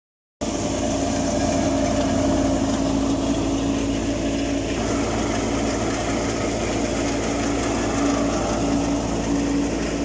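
Wheat thresher running steadily: a constant machine drone with a steady hum.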